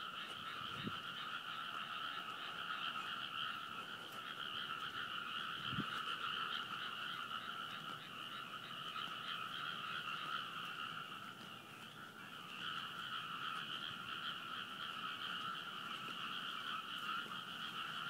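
A dense chorus of many frogs calling together from a rice paddy, a continuous massed croaking that eases briefly about twelve seconds in.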